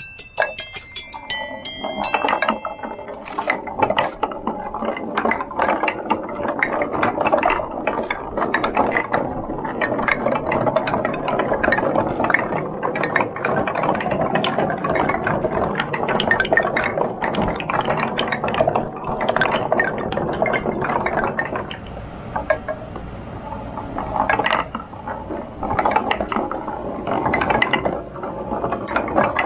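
Many glass marbles and golf balls rolling down a wooden marble run of OSB board and 2x4 rails: a continuous rolling rumble full of clicks and knocks as they clatter against the wooden rails. A few short, high ringing tones sound in the first couple of seconds.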